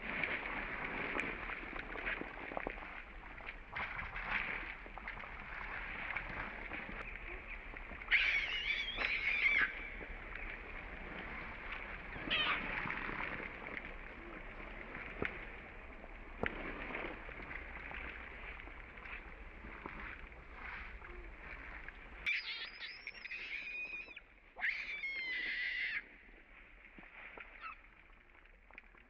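Baby long-tailed macaque giving high-pitched screeching calls in short bursts: one about eight seconds in and two close together about two-thirds of the way through, with fainter cries in between.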